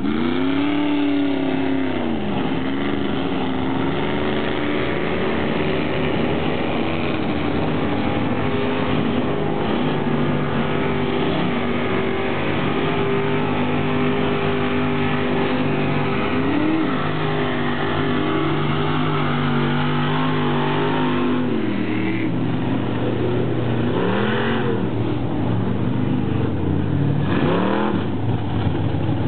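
Engines of lifted mud trucks on oversized tyres revving hard in a mud pit, the pitch sweeping up and down again and again with the throttle, with a stretch of steady high running in the middle.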